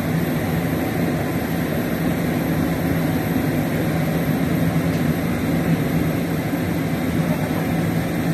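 Excavator's diesel engine running steadily, a constant low drone while its bucket holds the pipe.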